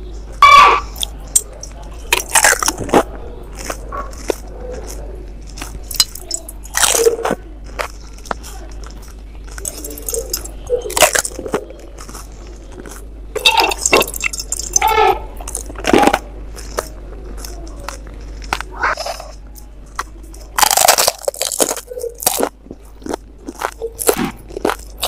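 Close-miked crunching and chewing of golgappe (pani puri), the crisp hollow fried puri shells cracking between the teeth in irregular bursts every second or few.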